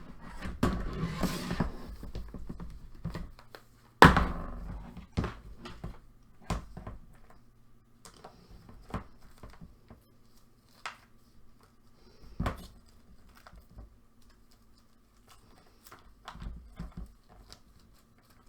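Small items and packaging being handled by hand: rustling for the first few seconds, a sharp knock about four seconds in, then scattered light taps and clicks.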